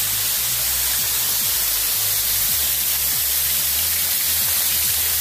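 Steady hiss of water pouring and spraying off the rock ledge above the tunnel mouth, under soft background music with low bass notes.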